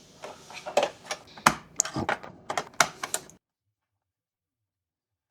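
Quick, irregular sharp clicks and taps of hard parts being handled, about three to four a second, stopping abruptly about three and a half seconds in, with one more click at the very end.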